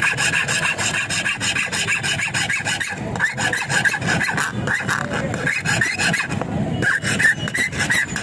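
Rasping, scraping metal-on-metal strokes, repeated rapidly and steadily, as a metal key blank is shaped.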